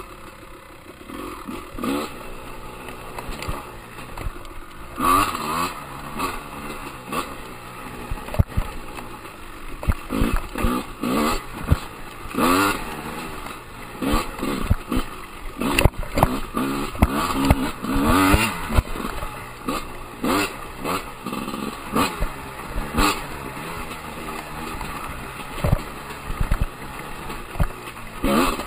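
Husqvarna enduro dirt bike engine revving up and down again and again as it is ridden, pitch rising and falling with each twist of the throttle. Sharp knocks and rattles come through as the bike hits bumps.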